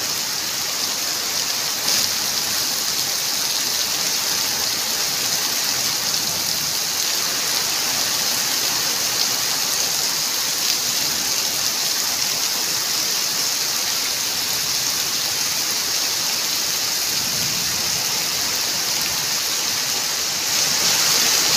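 Heavy rain pouring down in a steady downpour, a dense even hiss, with a single tap about two seconds in; the rain grows a little louder near the end.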